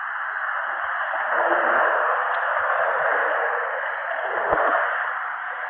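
Steady rushing noise that swells and eases, recorded through a spy pen camera's microphone, with no sound above a fairly low ceiling.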